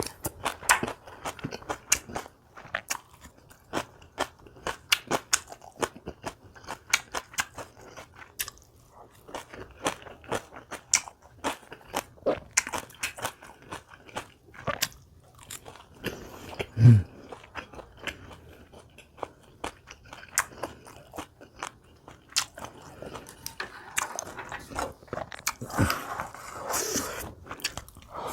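A person chewing crunchy kimchi with many crisp, irregular crunches, one heavier low thump about seventeen seconds in, and a stretch of louder chewing near the end.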